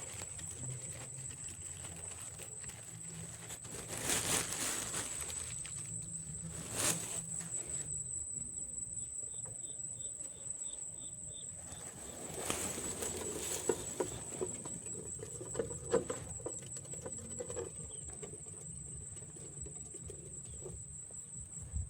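A steady high-pitched insect drone with a fine pulse, over intermittent rustling and light pattering, with a few louder rustles or knocks.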